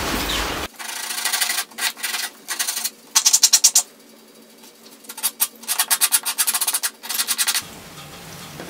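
Hand sanding a thin wooden strip with a piece of sandpaper: bursts of quick back-and-forth rasping strokes, with a pause of about a second in the middle. A bandsaw's running noise stops under a second in.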